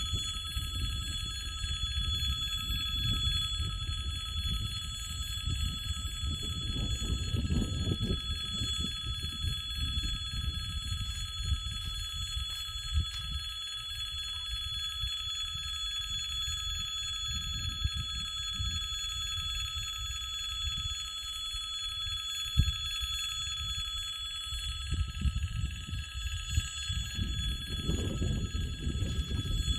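Railway level-crossing warning bell ringing continuously, the signal that a train is approaching. A fluctuating low rumble runs underneath, swelling near the end.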